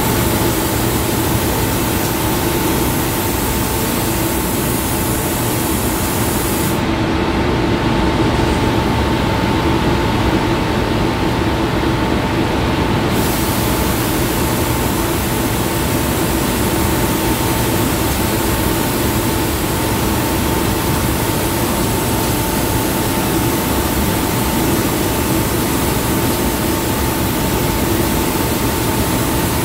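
Liquid-paint spray gun hissing steadily as it sprays paint onto metal parts, over a steady hum with two held tones. The highest part of the hiss drops away for about six seconds, starting about seven seconds in.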